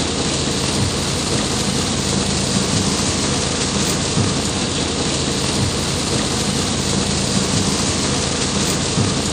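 Heavy tropical downpour, a dense steady rush of rain, heard from inside a moving car, with the car's steady low hum underneath.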